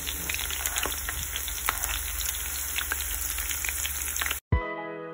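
Chopped green peppers, scallions and onion sizzling and crackling in hot oil in a frying pan. The sizzle cuts off suddenly about four and a half seconds in and background music begins.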